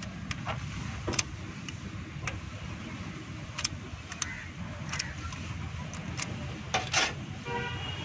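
Scattered light metal clicks and taps of tools on a Toyota Corolla engine's rocker arms as a valve tappet clearance is set, over a steady low rumble of passing traffic. A brief horn toot sounds near the end.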